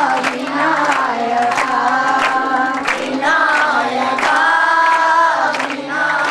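A man singing into a microphone and playing a harmonium, with a group of children singing along. The harmonium's reeds hold steady notes under the melody, and regular sharp beats keep time.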